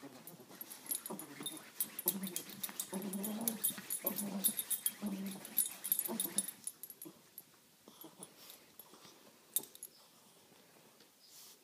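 Yorkshire terrier making short, low grunting and snuffling sounds over and over as it noses and digs into a bedspread, with scratchy rustling of the fabric. It dies down after about six and a half seconds, leaving only a few faint rustles.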